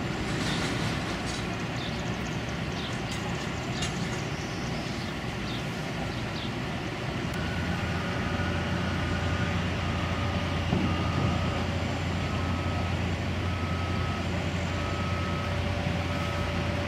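A reversing alarm beeping about once a second from about nine seconds in, over a steady low engine drone that grows stronger about eight seconds in. Birds chirp briefly in the first few seconds.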